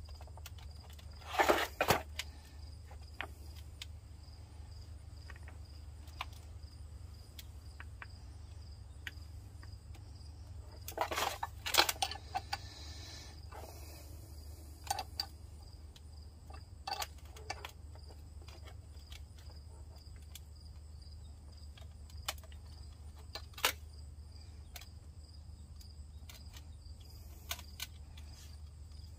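Scattered metallic clicks and clinks from a wrench and a steel brake caliper bracket as a seized caliper slide pin is worked loose and out of the bracket. The loudest clatters come about one and a half seconds in and again around eleven to twelve seconds. A steady low hum and a steady high insect-like trill run underneath.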